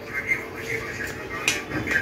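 A single sharp clink of a spoon against a dinner plate about one and a half seconds in, over a faint murmur of voices.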